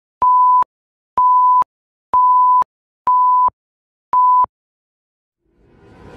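Video-intro countdown beeps: five identical electronic beeps, one per second, each a steady tone about half a second long with a tiny click at its start and end, the last one a little shorter. A whoosh sound effect starts to swell just before the end.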